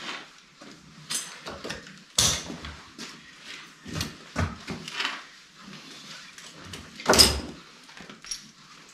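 Horses being handled in a stable aisle: scattered knocks and clatters of hooves shifting on the floor, with rustling of lead ropes and tack. The loudest knock comes about seven seconds in.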